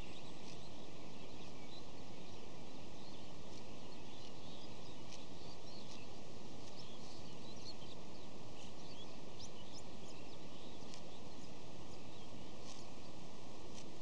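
A flock of birds chirping, with many short, high calls scattered throughout over a steady hiss.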